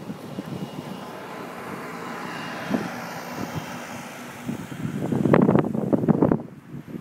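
Wind gusting hard on the microphone, a loud rumbling buffet for about a second and a half near the end that cuts off suddenly. Under it runs a faint, steady engine drone.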